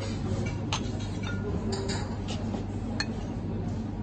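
A few light clinks of glassware and a steel jigger being handled on a bar counter, over a steady low hum.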